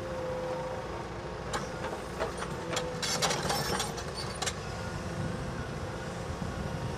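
Diesel engines of a CAT 323 tracked excavator and a dumper running with a steady hum and a faint steady whine, with a cluster of sharp metallic clanks and rattles from about one and a half to four and a half seconds in as the excavator swings its bucket.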